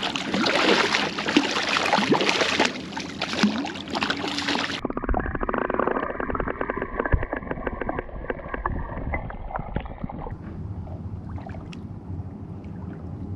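Spiny dogfish thrashing and splashing at the water's surface as it is reeled to the boat. About five seconds in, the sound turns abruptly muffled and low, heard from underwater, with rapid small clicks and ticks.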